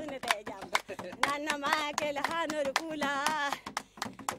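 A woman singing in held, wavering notes over steady handclaps, about three claps a second.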